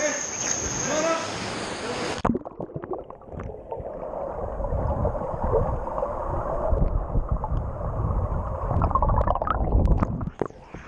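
Rough lake water slapping and splashing at the surface, then heard from below when the microphone goes underwater about two seconds in: a muffled low churning and bubbling with scattered clicks, until it breaks the surface again near the end.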